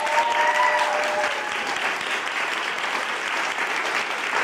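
A small group of people applauding steadily. One voice lets out a held cheer over the clapping in the first second or so.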